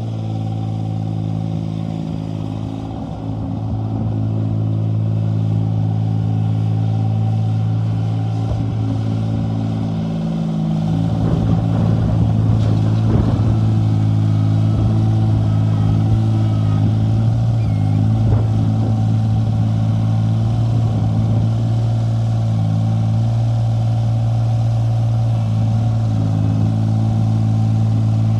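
Terramite T6D backhoe engine running steadily at a constant speed. Irregular clanks and knocks come in about ten seconds in and die away about twenty seconds in.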